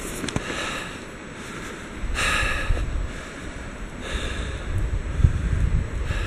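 A runner's heavy breathing close to the microphone, with hissy breaths about every two seconds, the strongest about two seconds in. Wind buffets the microphone with a low rumble from about two seconds on.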